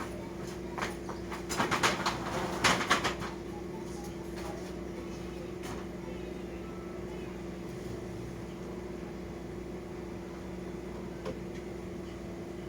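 A steady machine hum, with a cluster of clicks and knocks about two seconds in and a few lone clicks later.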